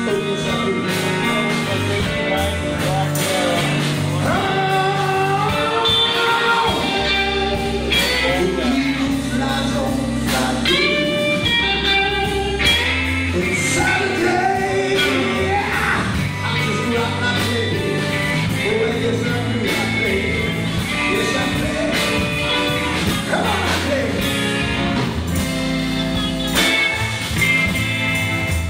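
Live rock band playing electric guitars, bass guitar and drums, with a male lead singer.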